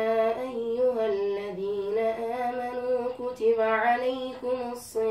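A boy reciting the Quran in melodic tajweed style, solo voice. He holds a long drawn-out note, moves through a stretch of ornamented, wavering notes, then settles into another long held note near the end.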